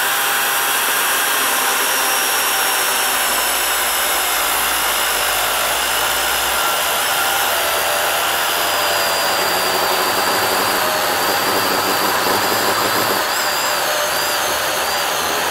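DeWalt FlexVolt battery chainsaw fitted with a ripping chain, cutting lengthwise along a hardwood log. Its motor and chain make a steady high whine that wavers slightly near the end.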